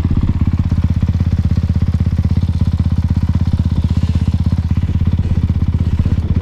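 450cc four-stroke dirt bike engine running steadily at low revs, an even rapid thumping that neither rises nor falls.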